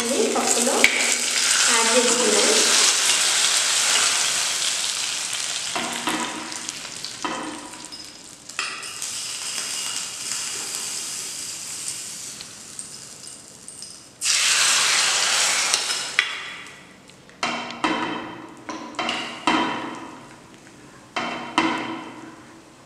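A hot ghee tempering of garlic, dried red chillies, seeds and curry leaves poured into a pot of moong dal rasam, sizzling loudly at once and dying away over several seconds. A second loud hiss comes about fourteen seconds in. Near the end a spatula stirs the rasam with several short scrapes and splashes.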